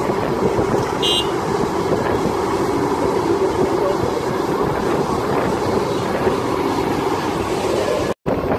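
Kobelco SK200-10 hydraulic excavator's diesel engine running steadily under load as it works, loading soil into a dump truck. A brief high-pitched chirp about a second in, and the sound cuts out for an instant near the end.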